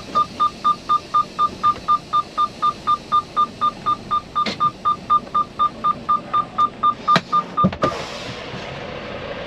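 Semi truck's reverse warning beeper sounding while the tractor-tanker backs up: rapid, evenly spaced high beeps, about four a second, that stop about eight seconds in when the truck stops. A steady hiss follows.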